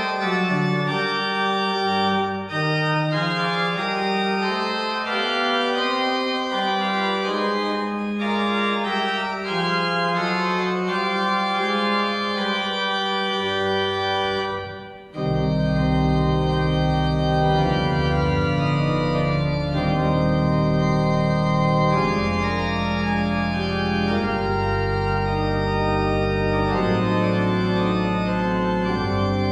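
Organ music: slow, sustained chords. About halfway through the sound briefly dips, then comes back fuller with deep bass notes held under the chords.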